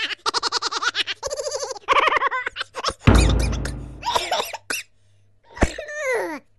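Cartoon intro sound effects: a rapid, high-pitched cackling chatter, then a loud deep boom about three seconds in, followed by a steeply falling squeal near the end.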